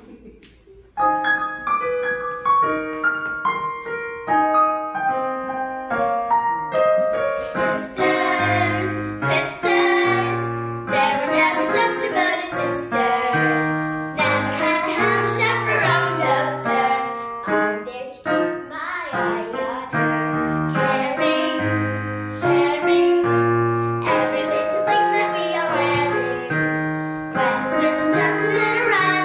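Piano playing a recital piece, beginning about a second in, with a child's singing voice joining the piano from about eight seconds in.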